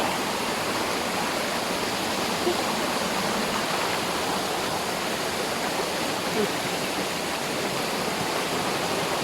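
Steady rush of water flowing over rocks in a mountain river, an even, unbroken hiss.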